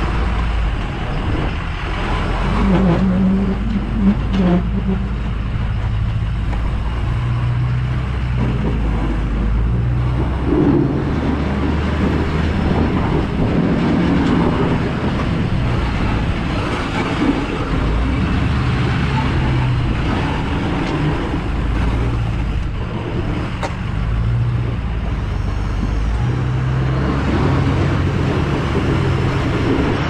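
Ford F-250's 6.0 Power Stroke diesel V8 running under load as the truck pushes snow with its Boss plow, the engine note rising and falling with the throttle. A constant noisy rush of the blade and snow lies under it.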